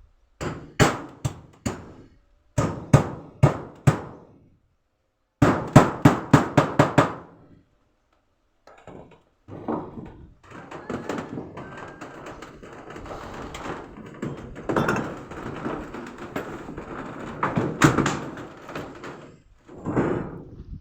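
Hammer blows on wood in three quick runs, the last a fast string of about eight strikes, typical of nailing during carpentry repair. This is followed by a longer stretch of uneven rasping and scraping work noise.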